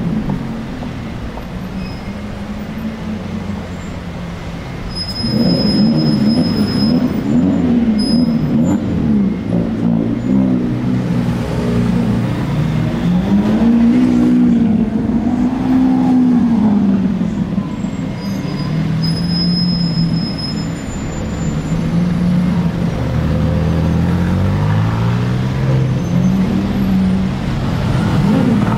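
Sports-car engines driving past at low speed, with engine notes rising and falling in repeated short revs. Quieter for the first few seconds, then louder from about five seconds in, with a steadier stretch of stepped engine notes later on.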